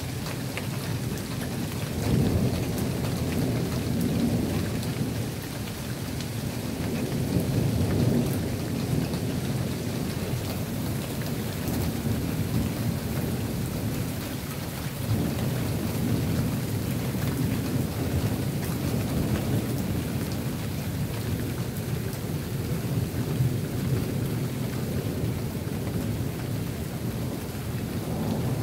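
Thunderstorm: steady rain falling with long rolls of thunder rumbling underneath, a loud roll starting about two seconds in and others swelling around eight and fifteen seconds in.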